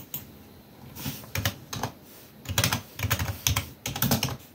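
Typing on a computer keyboard: quick runs of key clicks that start about a second in and go on in bursts.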